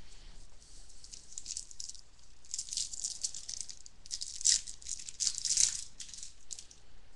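Baseball trading cards being slid and flipped against one another, a dry papery rustling with small clicks that swells twice near the middle.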